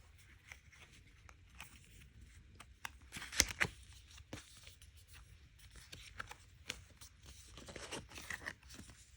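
Photocard packs being torn open and handled: scattered crinkles, small tears and clicks, the sharpest about three and a half seconds in.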